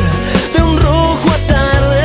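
Music: a song with a steady drum beat under a held, gliding melody line.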